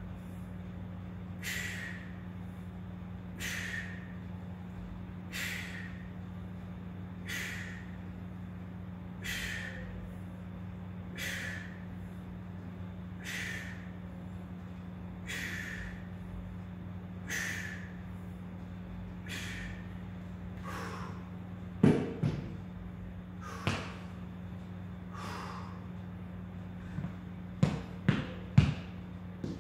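Sharp, forceful breaths out, about one every two seconds, in time with reps of dumbbell side bends, over a steady low electrical hum. Near the end come a few sharp knocks as the dumbbells are set down, the loudest sounds.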